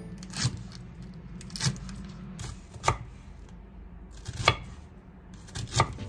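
Five light knocks or clinks, each with a short ring, about one every second and a half, over a low steady hum.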